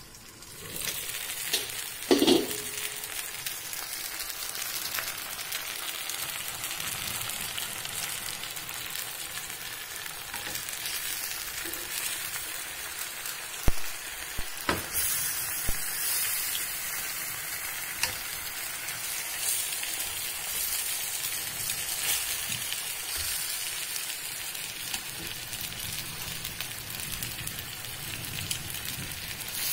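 Marinated chicken legs sizzling steadily in their masala gravy in a pan. A ringing clink comes about two seconds in as the glass lid is handled, and a few sharp knocks of a cooking utensil against the pan sound near the middle.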